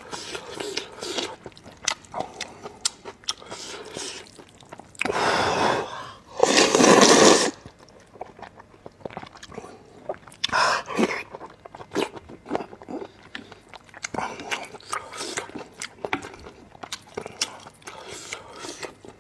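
Close-miked eating of spicy beef intestine rice noodles: chewing with small wet clicks throughout, and two loud, longer slurps about five and seven seconds in.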